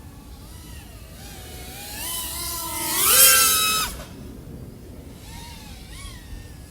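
3.5-inch FPV quadcopter's motors and propellers whining, climbing in pitch and loudness as the throttle is pushed, then cutting off suddenly about four seconds in.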